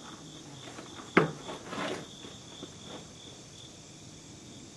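Crickets chirping steadily in a thin, high pulsing trill, with one sharp knock about a second in.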